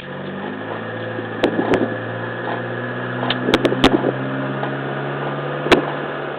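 Suzuki Jimny JB33 with its engine running steadily while sharp knocks come from the front end at irregular intervals, about half a dozen, several in quick succession about halfway through: the abnormal front-end noise being checked.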